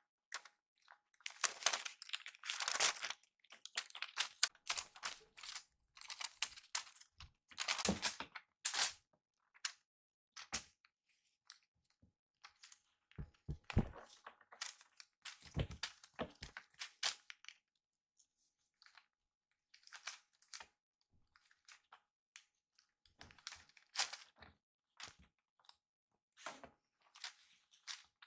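Kitten playing with a winged wand toy on a string: irregular bursts of rustling and small clicks as it bats, pins and bites the toy, with a few soft thumps about halfway through.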